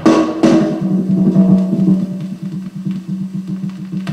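A percussion track from an audio check record playing over hi-fi loudspeakers. Two sharp drum strikes ring out at the start, then a softer, quick, even beat continues over a steady low tone.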